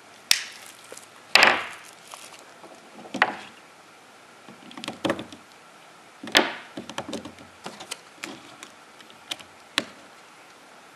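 Scattered clicks, taps and knocks with short rustles of packaging as a new camcorder and its batteries are handled on a wooden workbench. The loudest are a scraping rustle about a second and a half in and a sharp knock a little past the middle.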